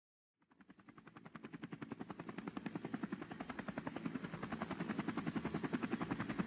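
Helicopter rotor chopping with a fast, even beat, fading in from silence and growing steadily louder, as if the helicopter is approaching.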